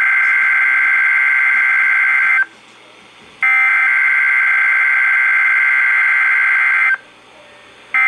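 NOAA Weather Radio SAME header data bursts of a Required Weekly Test, played through a Midland weather radio's speaker: a steady, buzzy burst of coded tones ends about two and a half seconds in, a second burst of about three and a half seconds follows after a one-second pause, and a third begins right at the end.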